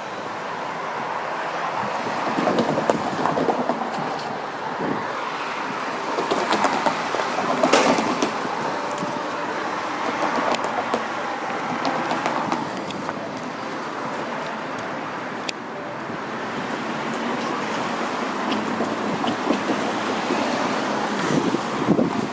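Vehicles passing through a railway level crossing: a rumbling noise that swells and fades several times, with a few sharp clicks.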